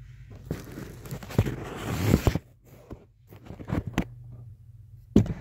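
Rustling handling noise, then several short sharp knocks and clicks as a car's engine computer is shaken by hand in its mounting bracket under the dashboard to test how firmly it is held.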